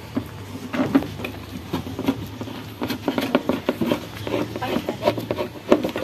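A screwdriver prying and working along the seam of a two-tub washing machine's plastic panels, giving irregular plastic clicks and knocks.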